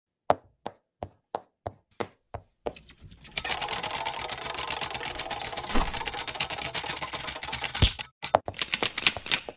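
Animation sound effects: a string of sharp single clicks, about three a second, then a dense clattering for about four and a half seconds, then a few more scattered clicks near the end.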